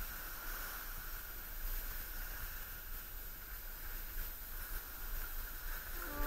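Steady wind rumble and hiss on an action camera's microphone, with no distinct events.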